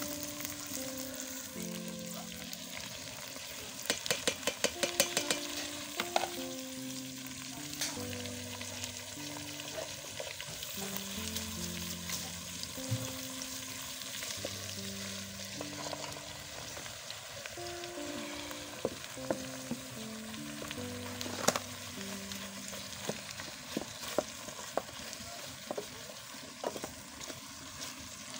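Chopped tomatoes, onions, green peppers and carrots sizzling in an aluminium saucepan, stirred with a wooden spoon that scrapes and knocks against the pot, with a quick run of clicks about four seconds in. Soft background music with slow held notes plays underneath.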